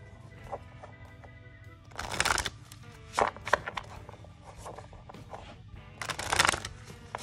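A deck of oracle cards, the Faeries' Oracle, being shuffled by hand in three bursts: about two seconds in, just after three seconds, and again around six seconds. Soft background music with held tones runs under it.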